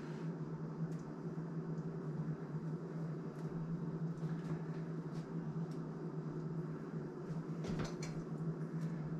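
Steady low electrical hum of a kitchen appliance, with scattered faint clicks and a cluster of light knocks near the end as pieces of dumpling dough are dropped into a slow cooker.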